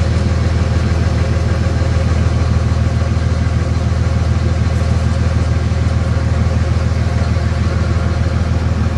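A vehicle engine idling steadily, a constant low drone that does not rise or fall.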